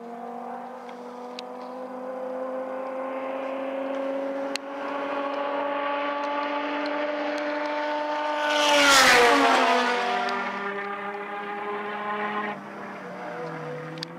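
Two race cars at full throttle on the straight, the engine note climbing steadily, then a car passes close by about nine seconds in at the loudest point, its pitch dropping sharply. The sound cuts abruptly near the end to another engine note.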